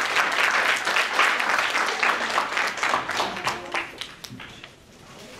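Audience applauding, dense at first, then thinning to scattered claps and dying away after about four seconds.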